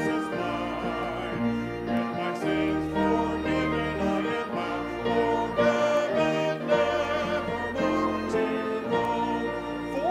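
A congregation singing a hymn over an instrumental accompaniment. The chords change every second or so above long, sustained bass notes.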